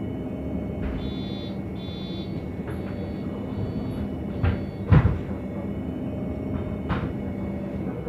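MAN NG 273 T4 LPG articulated city bus heard from inside, its gas engine running steadily with a low rumble. Two short high beeps sound about a second apart, then a few knocks follow, the loudest about five seconds in.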